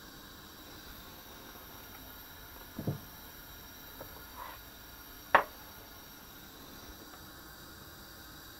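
Faint steady hiss under light kitchen handling as spaetzle batter is pushed through a metal grater over a pot of boiling water: a dull knock about three seconds in, a couple of small taps, and one sharp click about five seconds in.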